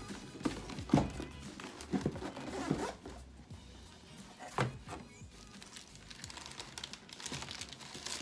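Cardboard box and packing being handled and opened: several knocks and thumps, then crinkling and tearing of packaging near the end, over background music.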